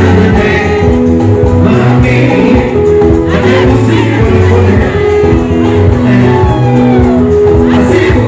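Live band music with a lead singer: held bass and keyboard notes under a sung melody, over a steady percussion beat.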